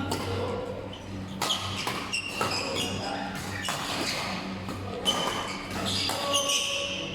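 Basketball game on an indoor court: the ball bouncing and thudding, shoes squeaking and shuffling, and players' voices echoing in the hall over a steady low hum.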